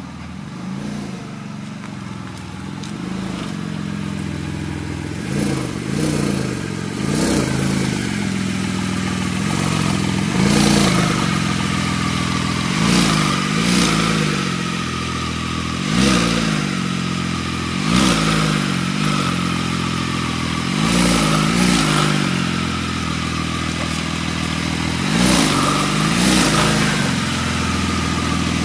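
Porsche 911 GT2 RS's 3.8-litre twin-turbo flat-six exhaust, idling with about a dozen short throttle blips that rise and fall quickly.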